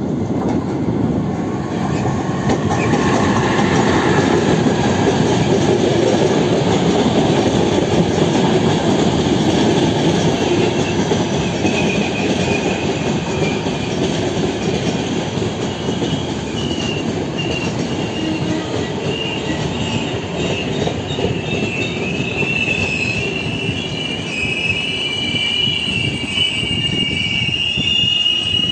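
Electric-hauled passenger train of red-and-white coaches passing close by, its wheels rolling steadily over the rails. A thin high wheel squeal sets in about halfway through and grows stronger near the end.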